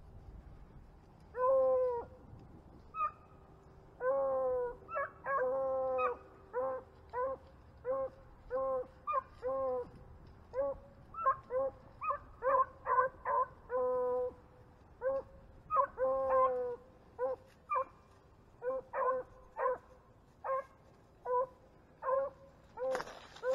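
Beagles baying on a rabbit's trail: a run of drawn-out bawls mixed with many short chop barks, at times about two a second.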